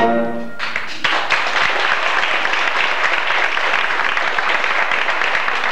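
Band music with brass ends about half a second in, and a theatre audience starts applauding at the end of the song. The clapping is steady and dense.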